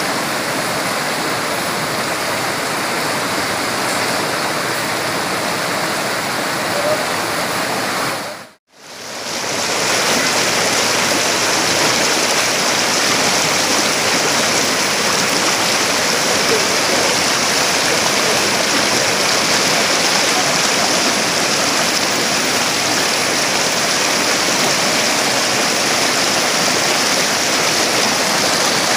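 Shallow rocky river rushing over stones in white-water rapids, a steady, loud wash of water. It cuts out briefly a little over eight seconds in, then comes back at the same level.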